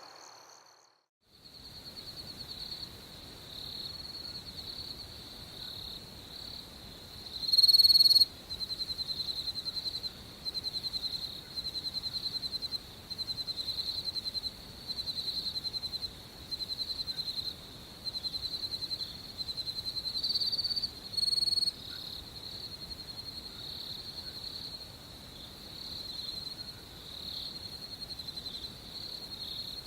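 Crickets chirping at night: a steady high-pitched trill, with trains of pulsed chirps repeating about once a second through the middle. The loudest chirp comes about eight seconds in. The sound briefly drops out about a second in, then starts again.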